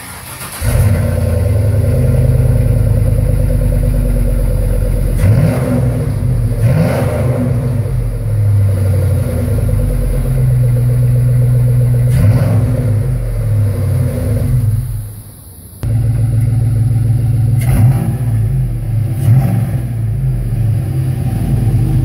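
2005 Chevy Tahoe's V8 running through a Black Widow muffler with turn-down tips: a deep exhaust note that comes in loud about a second in and is revved up and back several times. The sound drops away briefly past the middle, then returns abruptly.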